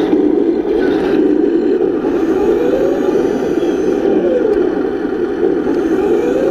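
Heng Long Walker Bulldog RC tank's simulated sound system playing a steady tank-engine rumble, with a few brief swells in pitch.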